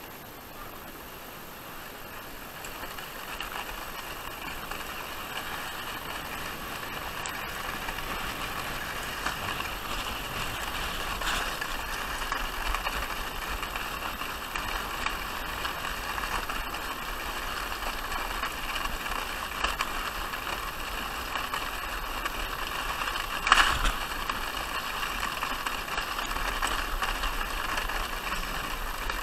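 A sledge sliding fast down a snowy path: a steady hiss and scrape of the snow under it that builds over the first several seconds as it picks up speed, with one sharp knock about three-quarters of the way through.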